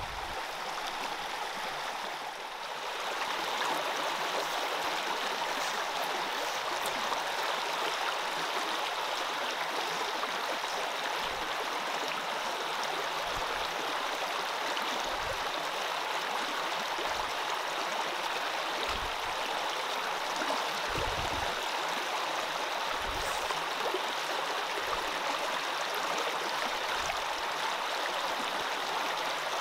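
Steady rush and babble of a shallow mountain brook running over rocks and small riffles, growing slightly louder about three seconds in.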